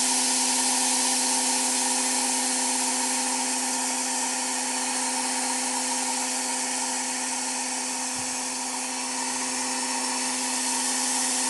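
Cold gas-dynamic spray gun hissing steadily as its jet of compressed gas and metal powder coats a rotating steering rack, over a steady machine hum.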